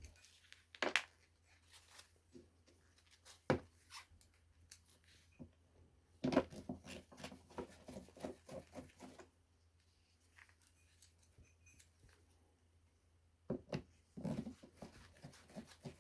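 Small clicks, taps and rattles of tools and parts being handled, with a quick run of clicks from about six to nine seconds in and another short cluster near the end.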